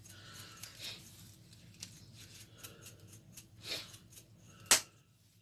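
Spice containers being handled on a counter: scattered faint ticks and rustles, then one sharp click a little before the end.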